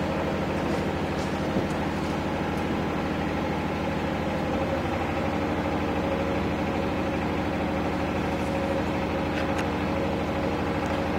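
Steady machine hum, engine-like, made of several steady tones that hold at one level throughout, with a few faint clicks now and then.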